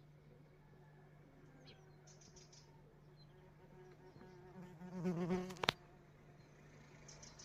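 A flying insect buzzing close past the microphone for about a second, a little past the middle, its pitch wavering, ending in a sharp tick. Faint bird chirps come now and then.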